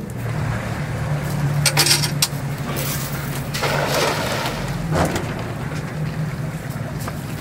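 A boat's outboard motor running steadily with a low hum that changes pitch just after the start. Louder rushing sounds come at about two and four seconds in, and there is a sharp knock about five seconds in.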